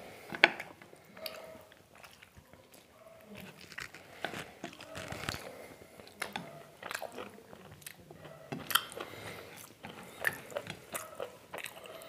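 Close-miked chewing of mutton curry and rice: irregular wet smacks and clicks of the mouth, several a second, with a few louder smacks.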